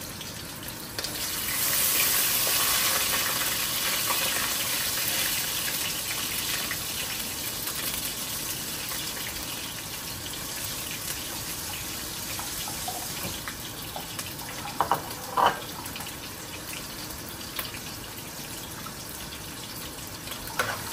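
Onions, garlic and pimento peppers sizzling in hot oil in a cooking pot, a steady frying hiss that swells about a second in. Two brief squeaks cut through it about fifteen seconds in.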